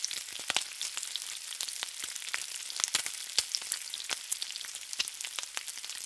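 Food frying in hot oil: a steady sizzle with many sharp pops and crackles throughout.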